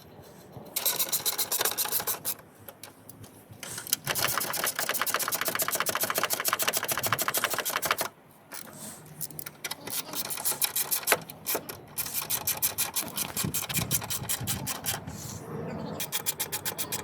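Ratchet wrench turning fast, giving rapid even clicks in runs of a few seconds with brief pauses between, as bolts are run in.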